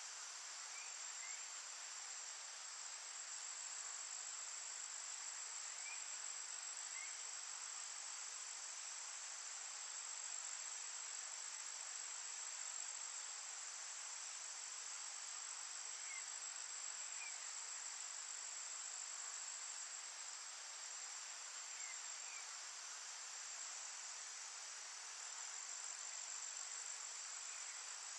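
Steady high-pitched insect chorus, with faint short chirps in pairs every few seconds.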